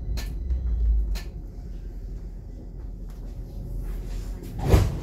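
Stockholm metro car standing at a platform with a low rumble and a few clicks, then the doors sliding shut with a loud thud near the end, just before the train pulls away.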